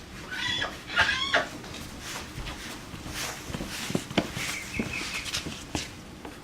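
Duck calls: two short, buzzy quacks about half a second and a second in, then a few sharp knocks and a brief high note past the middle.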